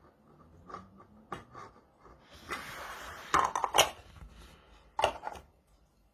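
Scattered light knocks and clinks of things being handled, with a rustling, hissing stretch of about two seconds beginning about two and a half seconds in, sharper knocks within it, and a single sharp knock near the end.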